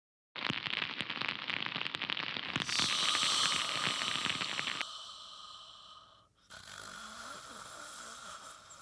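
A person snoring: a rasping, rattling snore that builds for several seconds, then drops to a quieter breathy sound after a brief break about six seconds in.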